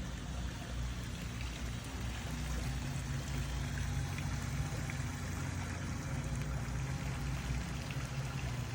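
Water running and splashing steadily into a swimming pool as it circulates, with a low steady hum underneath.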